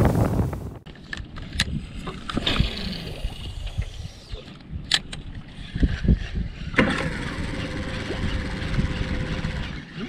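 A 40 hp outboard running at speed with wind buffeting the microphone, cut off within the first second; then scattered knocks and taps over a low wash of water and wind, with a faint steady hum coming in about two-thirds of the way through.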